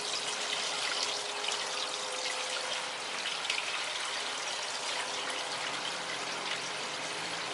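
Pump-fed small pond waterfall: water jetting out of a holed rock and splashing over a fake plant into the pond, a steady splashing trickle that churns air into the water.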